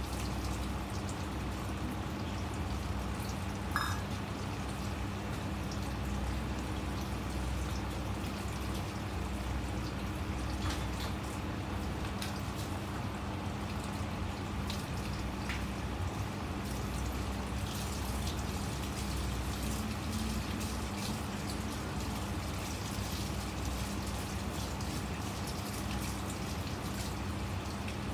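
Steady low electrical hum over even room noise, with a few faint scattered ticks and clicks.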